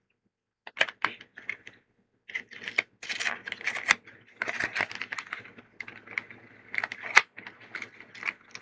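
Foil wrapper of a Pokémon card booster pack being torn open and crinkled: a dense run of sharp crackles and rustles starting about a second in.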